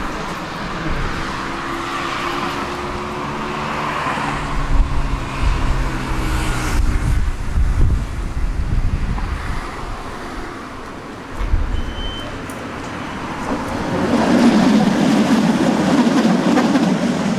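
Tram running along the track: an electric motor hum over a low rumble of wheels on rails, with a short high beep about halfway through and the rumble swelling near the end.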